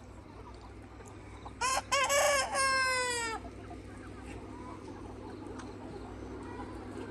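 Red Mía rooster crowing once, a loud cock-a-doodle-doo with a few short opening notes and a long last note that falls away near the end. The call comes a little over a second and a half in.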